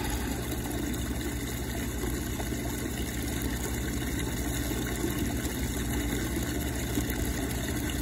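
Pool equipment running: a steady low mechanical hum with water-circulation noise, unchanging throughout.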